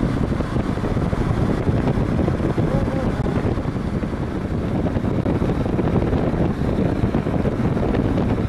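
Diesel car driving along an asphalt road: steady low road and engine noise, with wind buffeting the microphone.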